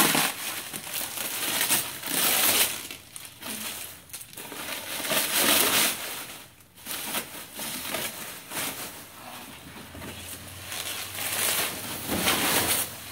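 Bubble wrap crinkling and rustling in repeated bursts as it is pulled and pushed aside to free a bulky wrapped object.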